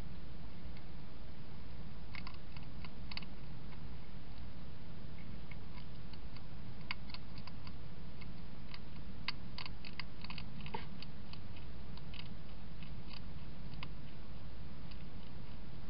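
European hedgehog eating from a bowl: irregular, crisp crunching clicks of chewing, starting about two seconds in and thickest around the middle, over a steady low background hum.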